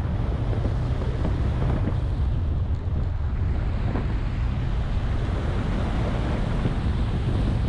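Subaru WRX driving over a snow-packed course: a steady, dense rush of engine, tyres on snow and wind on the microphone, heaviest in the low end, with no distinct revs or impacts.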